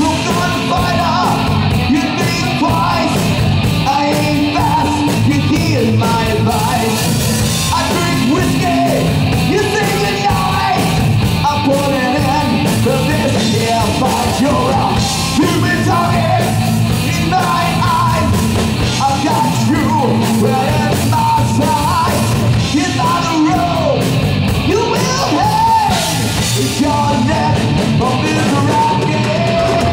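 Live rock band playing: a man sings into a microphone over electric guitar and a drum kit.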